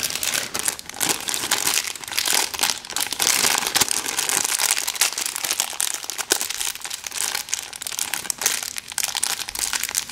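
Thin plastic packaging crinkling and rustling continuously as toy pieces are handled and unwrapped, with many small irregular crackles.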